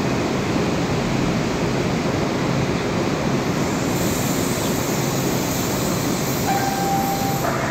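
Metro-North M8 electric train approaching the platform, a steady rumble and hiss of wheels on rail and running gear. Near the end a brief steady squeal of about a second as the train slows to stop.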